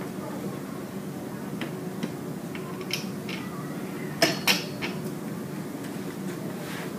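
Light clicks and clinks of ripple tank parts being handled and fitted onto the metal stand frame, with two sharp clatters about four seconds in. A steady low hum runs underneath.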